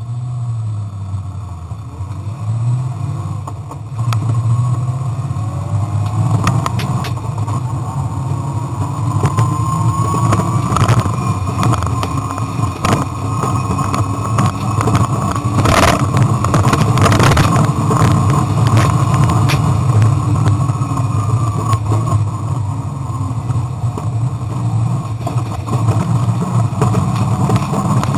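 Rover 3.5-litre V8 of a Bowler Tomcat Land Rover driven hard over a rough track, heard loud from inside the cab. The engine note climbs from about five seconds in and then holds, with sharp knocks and rattles over the bumps. The noise overloads the camera's microphone, so the sound is distorted.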